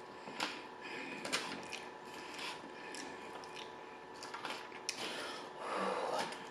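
Close-miked eating sounds: chewing food, with scattered crisp clicks and crackles and a short louder crunching patch near the end.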